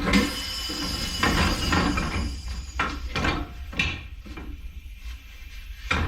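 Clattering and knocking of metal parts being handled in a workshop: a busy stretch of clanking for the first few seconds, then several separate sharp knocks.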